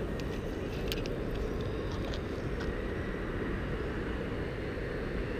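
Steady rumble of city traffic, with a few faint ticks in the first few seconds.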